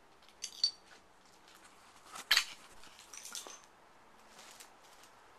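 Footsteps crossing a debris-strewn floor: a few sharp clinks and crunches of loose rubble underfoot, the loudest a little over two seconds in.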